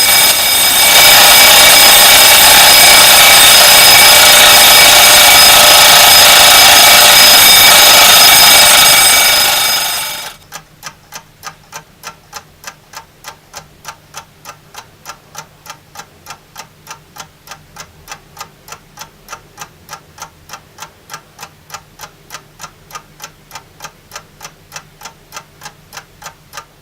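Sevani mechanical alarm clock: its alarm bell rings loudly for about ten seconds, then stops. After that the clock's movement ticks steadily, about three ticks a second.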